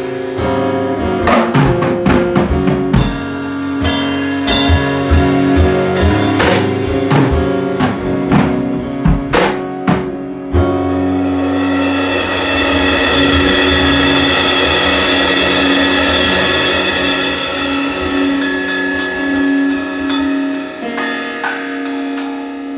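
Live jam of a drum kit and guitar. About ten seconds in, the drum beat gives way to a long ringing wash of cymbals over held chords.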